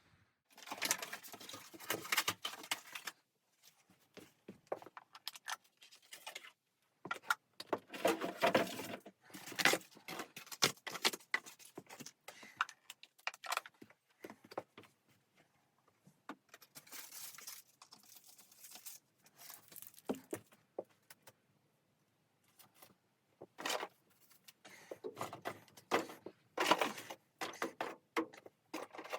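Intermittent rustling and clinking of objects being handled at close range, in irregular bursts with quiet gaps between them.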